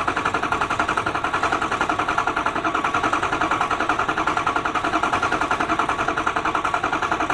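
Ford 6.0L Power Stroke V8 diesel cranking over on its starter without firing, with a steady, rapid, even chugging rhythm. The engine is being turned over to build oil pressure and bleed air out of the high-pressure oil system after injector work.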